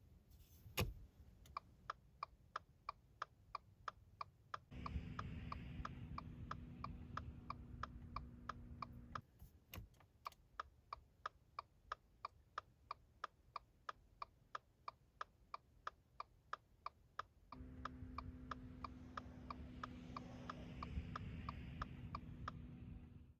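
Car turn-signal indicator ticking evenly, about two clicks a second, heard inside the cabin. A sharp click comes about a second in, and twice a low engine hum comes up under the ticking and then drops away.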